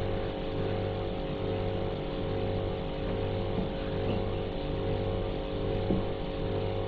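Background music with sustained held notes over a steady low pulse.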